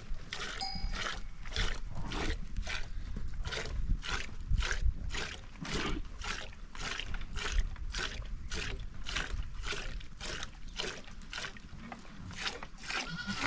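A sheep being milked by hand: milk squirts into a container in a steady rhythm of about two to three squirts a second.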